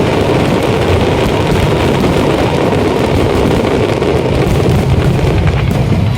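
Aerial fireworks going off in a dense barrage, many bursts merging into one continuous rumble with crackling over it.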